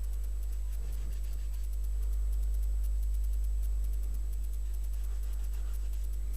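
Quiet room tone: a steady deep hum with a faint high whine and fine ticking over it, and no clear event.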